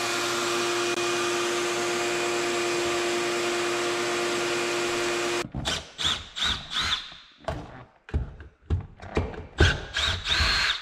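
Shop vacuum running steadily with a strong hum, then switched off about five seconds in. After it stops come irregular knocks, clunks and a few short squeaks of hands working under the dashboard in the car's front footwell.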